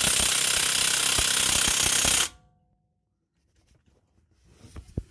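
Impact wrench hammering on a 19 mm rear brake caliper bracket bolt, loud and rapid for about two seconds, then stopping suddenly. A few faint clicks follow near the end.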